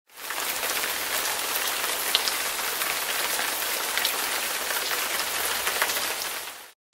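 Steady rain falling, with a few louder single drops standing out. It fades in at the start and fades out just before the end.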